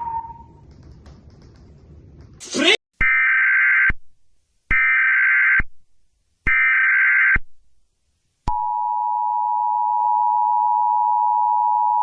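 Emergency Alert System header: a short rising sweep, then three identical bursts of screeching digital data tones, each under a second long and about a second apart. About eight and a half seconds in, the steady two-tone EAS attention signal starts and holds.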